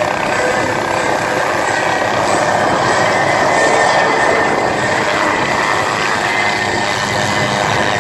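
Helicopter running close by: a loud, steady mechanical noise with a few steady tones held through it.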